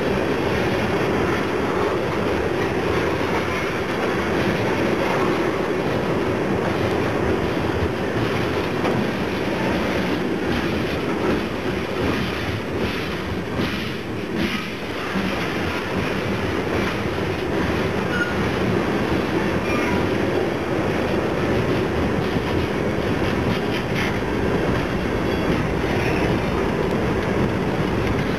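Freight cars (tank cars, boxcars and covered hoppers) rolling past close by: a steady rumble and clatter of steel wheels on rail. There is a run of sharper clacks around the middle.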